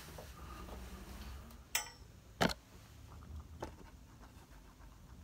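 A hand handling the recording phone or camera: a sharp click nearly two seconds in, a louder knock about half a second later, then a fainter tap, over faint low room hum.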